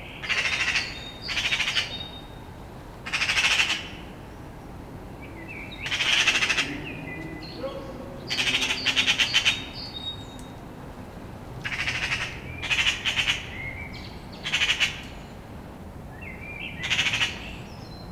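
Eurasian magpies giving their harsh, rattling chatter in about nine separate bursts, each half a second to a second long. It is their mobbing alarm call at a cat, a predator they are trying to drive off.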